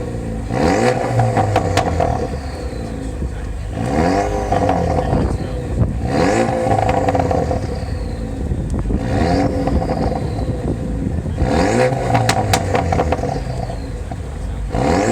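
Ford Focus RS Mk3's turbocharged four-cylinder on an aftermarket exhaust, revved about five times in a row. Each rev rises sharply and falls back, with crackles and pops as the revs drop.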